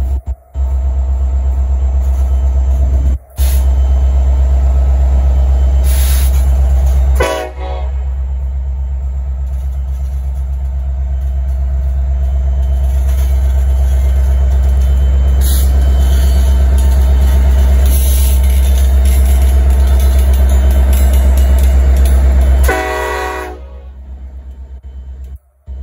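Diesel locomotives of CN freight train 450, led by CN 8925, passing close at departure: a loud, steady low engine rumble, with the train horn sounding.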